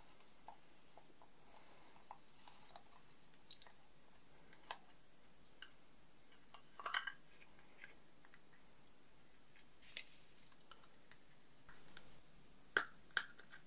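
Faint clicks, taps and light rustles of fingers handling and fitting parts of a plastic earbuds charging case, with a few sharper plastic clicks near the end.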